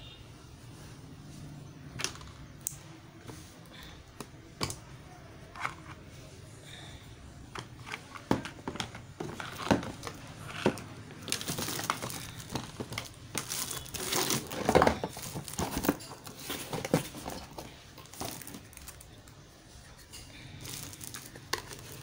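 Plastic wrapping crinkling and rustling as a hair dryer and its plastic comb attachments are unpacked and handled. A few separate sharp clicks come first, then a longer stretch of dense crinkling in the middle.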